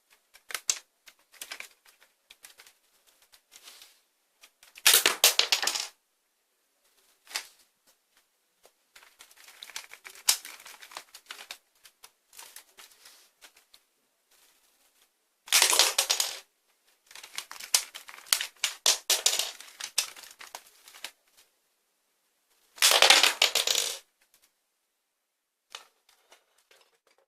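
Plastic clicks and clacks of a Lego-brick pump-action shotgun being handled and worked, with three louder clattering bursts of about a second each, about 5, 16 and 23 seconds in.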